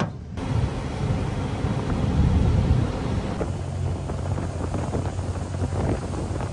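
Outboard motor on a small aluminium dinghy running at speed: a steady low drone, with wind noise on the microphone.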